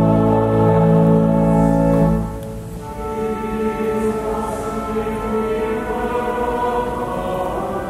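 Church choir singing with accompaniment. A loud, low held chord stops about two seconds in, and the choir carries on more quietly.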